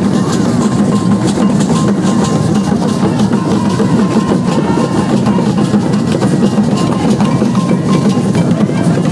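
Drumming for the Adjogbo traditional dance: tall wooden barrel drums played in a dense, steady rhythm.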